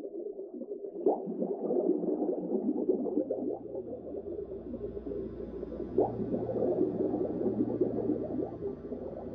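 Underwater ambience: a dense, crackling water texture with a low steady hum that comes in about four seconds in. Two sudden swells come about one second and six seconds in.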